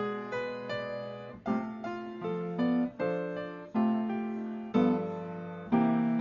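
Solo piano playing slow, quiet chords. Each chord is struck and left to ring and fade before the next, about one every half second to a second.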